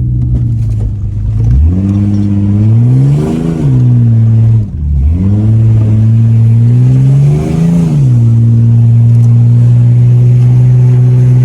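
Ford Falcon's engine under hard acceleration. The revs climb twice, with a sharp drop in pitch about five seconds in, then settle and hold steady.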